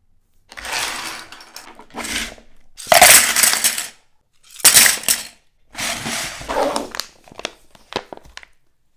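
Hard plastic toy-egg pieces clattering and a plastic foil packet crinkling as they are handled, in about five loud bursts of a second or so each, then a string of short clicks.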